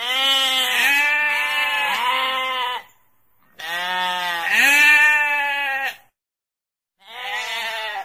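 Sheep bleating: a series of long, drawn-out bleats with short pauses between them.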